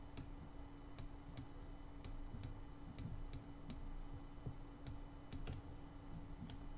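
Computer mouse button clicking, about a dozen sharp clicks at an irregular pace, over a faint steady hum.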